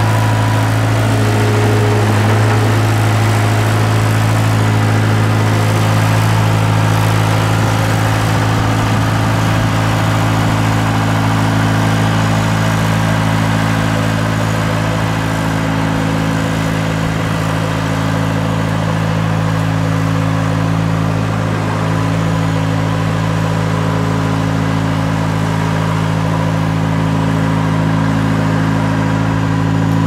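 John Deere utility tractor's diesel engine running steadily at a moderate speed as the tractor drives with a loader load.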